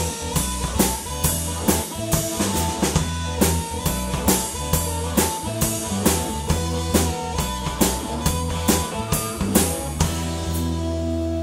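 Blues-rock band playing live, the drum kit beating out a fast rhythm over bass and guitar. About ten seconds in the drums stop and a held chord rings on.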